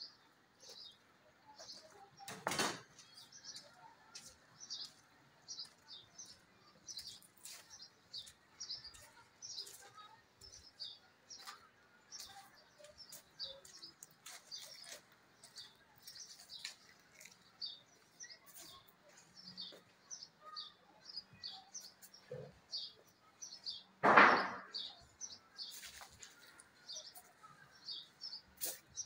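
Small birds chirping rapidly and continuously, several short high calls a second. A louder, brief sound breaks in about two and a half seconds in, and a stronger one just before the end.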